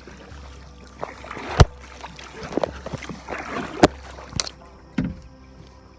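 Kayak paddling: water swishing with the paddle strokes, broken by several sharp knocks, the loudest about a second and a half in.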